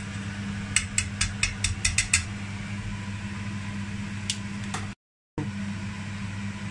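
Metal kitchen tongs clicking and tapping, about eight quick clicks over a second and a half, as boiled potatoes are set into a cast-iron skillet, with two fainter taps later. A steady fan hum runs underneath, and the sound drops out for a moment about five seconds in.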